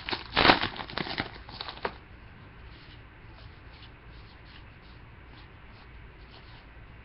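A trading card pack wrapper crinkling and tearing open for about two seconds, then quieter soft ticks of cards being slid and handled.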